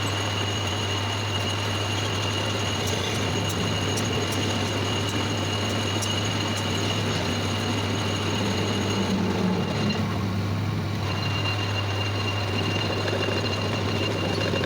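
Manual lathe running with a steady electric motor hum and a high steady whine; the whine drops out about nine seconds in and comes back about two seconds later.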